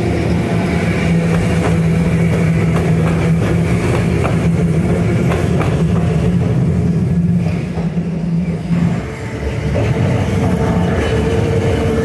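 Randen (Keifuku Electric Railroad) streetcars running through a street crossing. A steady low hum stops about nine seconds in, then a higher steady whine comes up as a purple car draws near, with scattered clicks of wheels over the rails.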